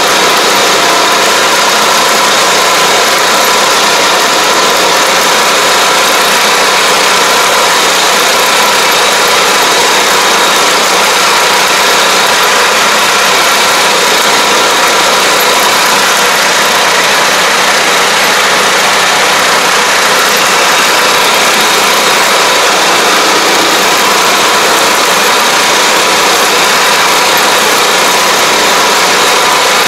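Engine of a ride-on pesticide sprayer running steadily under way, with the hiss of the spray running over it.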